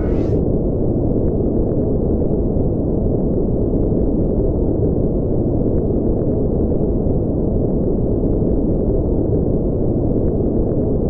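Steady low rumbling brown noise, used as the spaceship's engine drone, with a brief high shimmer at the very start.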